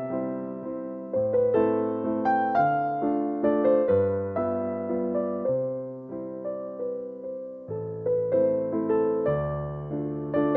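Background music: a gentle keyboard melody on electric piano, with notes struck and fading over a slow bass line.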